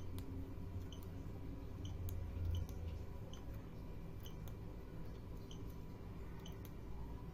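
Steady low electrical hum from a powered-on machine, with short faint high-pitched ticks about once a second.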